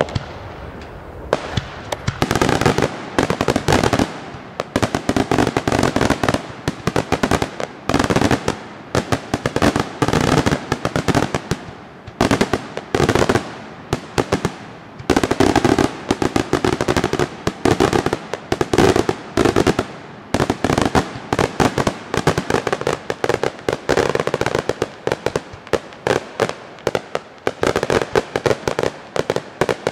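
Daytime aerial fireworks display: a dense, continuous barrage of shell bursts and crackling bangs, many reports a second, with only brief lulls.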